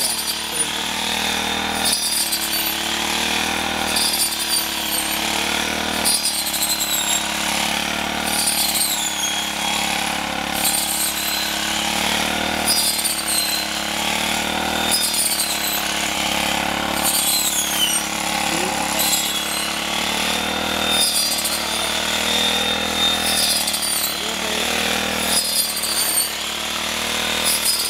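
Small four-stroke engine of a shoulder-slung mini rice cutter running at working speed while its blade cuts standing paddy. The engine note sags and recovers about every two seconds as each swing loads the blade, and a high falling whistle comes with each swing.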